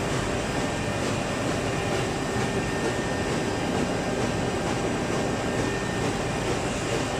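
Viola adult diaper production machine running: a steady, dense mechanical clatter with faint constant tones over it.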